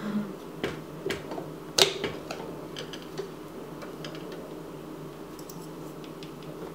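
Plastic clicks and knocks as the KitchenAid ice cream maker attachment's drive assembly is pushed onto the stand mixer's beater shaft. There is a handful of sharp clicks in the first few seconds, the loudest a little under two seconds in, then only faint ticks.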